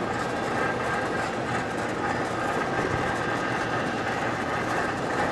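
Air conditioner's outdoor condensing unit running steadily, compressor and condenser fan going, with its new relay fitted and the unit working normally.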